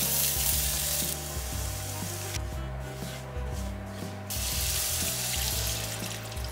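Sliced onion and shimeji mushrooms sizzling in a nonstick frying pan as a spatula stirs them, then flour scraped through. Near the end, water is poured into the hot pan with a strong hiss.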